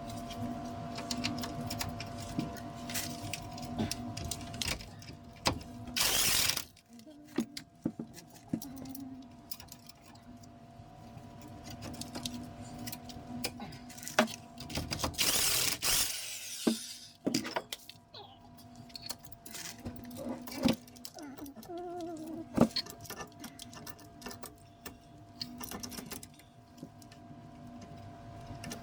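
Metal tools clinking and rattling during car suspension work, over a steady low hum, with two short loud rushing bursts of noise about six and fifteen seconds in.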